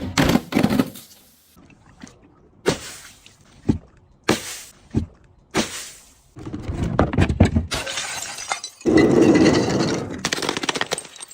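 Glass bottles breaking and being crushed: a series of sharp separate cracks, then two longer stretches of dense crunching and crackling of shattering glass.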